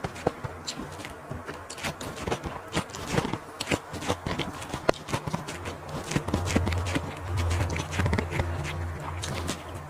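Close-up eating sounds of barbecue sausage and lettuce being chewed: a steady stream of short crunches and wet mouth clicks, over a low hum that swells past the middle.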